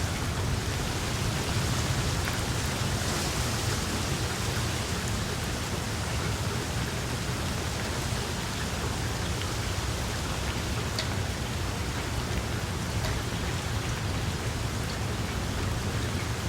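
Steady rain falling on tree leaves, an even hiss with a few single drops ticking through it.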